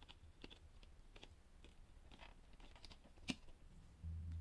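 Faint small clicks and ticks of fingers and a small screwdriver working the wire terminals and labels on a plastic thermostat wallplate, with one sharper click about three seconds in. A low hum comes in near the end.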